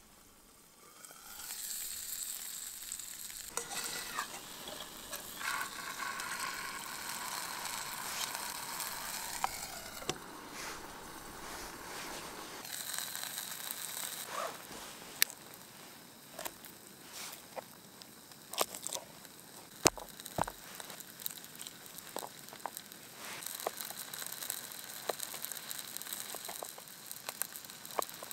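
Chicken breast sizzling in oil in a small camping frying pan on a gas stove, the sizzle starting about a second in. From about halfway, sharp irregular clicks of a knife chopping garlic on a thin plastic board join the frying.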